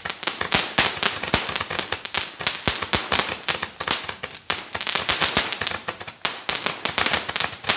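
Firecrackers going off in a rapid, unbroken run of sharp bangs, many a second.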